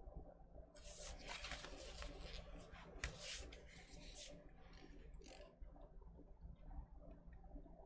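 Faint rustling and scraping of a cardboard gatefold vinyl record jacket being folded shut and handled, with a sharp tap about three seconds in.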